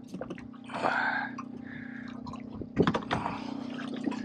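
A just-caught gray trout (weakfish) being handled on a boat. There is a brief splash of water about a second in and a cluster of sharp knocks near three seconds, over a steady low hum.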